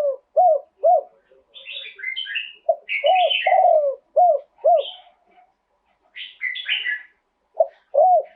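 Spotted dove cooing in repeated phrases of short, arched, hollow notes, several to a phrase, in the rhythmic style that fanciers prize. Clusters of higher chirps fall in the gaps between phrases.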